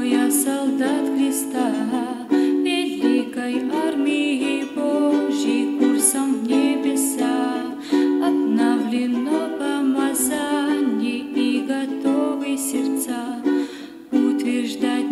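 Ukulele strummed in a steady rhythm, with a woman singing a worship song over it.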